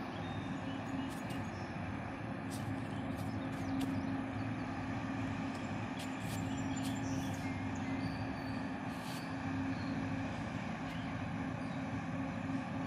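A paddlewheel riverboat under way, running upriver against the current: a steady low engine drone with a steady hum held through it.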